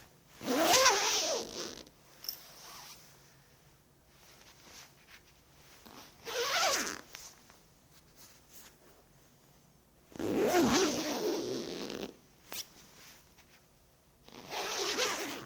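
Clothing zipper zipped four separate times, each pull lasting about one to two seconds, with a faint click between the third and fourth.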